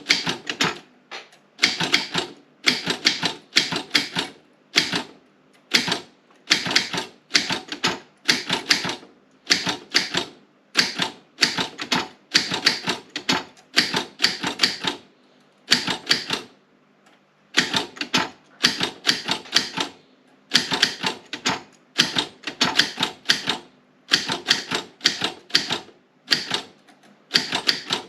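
Optima M16 typewriter being typed on: quick runs of key strikes separated by short pauses, with a longer pause about two-thirds of the way through.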